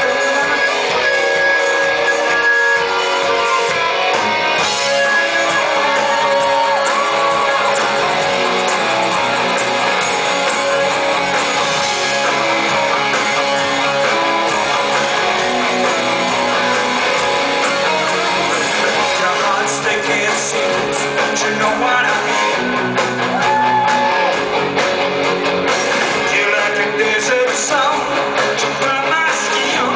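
Rock band playing live: electric guitars over bass and drums, loud and steady throughout.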